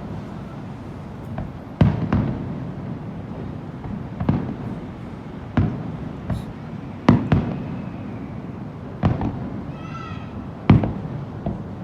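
Aerial fireworks shells bursting, about nine sharp bangs at irregular one-to-two-second gaps, each followed by a low rolling echo.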